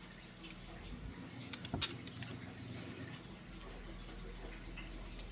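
Faint small metal clicks and taps as the set screw is fitted into a padlock: a quick cluster about one and a half seconds in, then a few scattered ticks.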